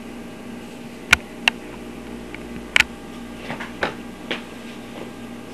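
A handful of sharp, irregularly spaced clicks, one close pair among them, over a steady low hum.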